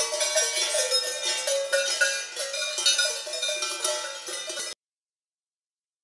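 Swiss Alpine cowbells clanking irregularly, several bells of different pitches ringing over one another. The sound cuts off abruptly about three-quarters of the way through, leaving silence.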